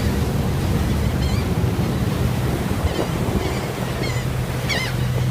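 Steady rush of wind and churned water behind a ferry, over the low hum of the ferry's engine, with a few short, high, wavering bird calls about a second in, about three seconds in and near the end.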